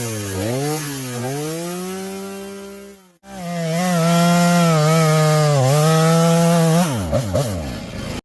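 Two-stroke chainsaw engine revving up and down, then held at high revs. The sound breaks off abruptly about three seconds in and comes back at high revs, then the engine slows with falling pitch near the end.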